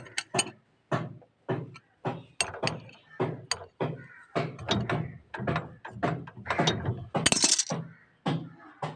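Metal hand tools clinking and clanking in quick, irregular strikes, with ratcheting, as bolts are worked on a rickshaw wheel.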